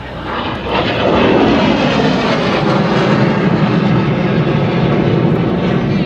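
MiG-21 jet fighter's turbojet engine roaring loudly as it flies past. The sound swells about a second in, its pitch sliding down over the next second or so, then holds as a steady loud roar.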